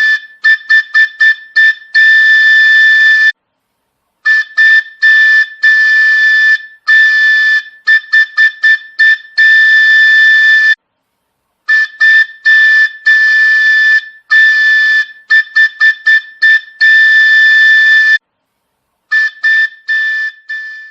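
High-pitched whistle sounding on one steady note in a signal pattern: long blasts mixed with quick runs of short toots. The pattern breaks off for about a second and starts again, twice.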